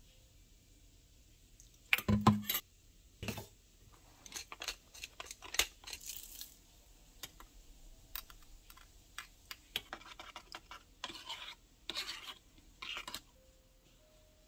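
Metal utensils clinking against a small metal measuring cup while a sauce is mixed: a sharp clatter about two seconds in, a single knock a moment later, then scattered light taps and short scraping stirs.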